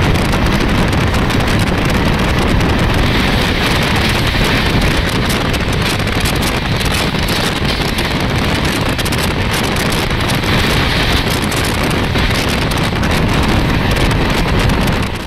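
Express train running at speed: steady wind rushing over the microphone together with the rolling noise of the train on the track.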